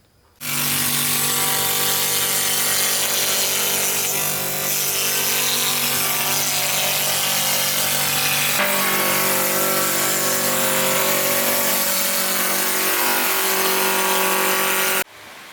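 A woodworking power tool running steadily, a hum with a hiss over it, its pitch shifting about eight seconds in. It starts and stops abruptly.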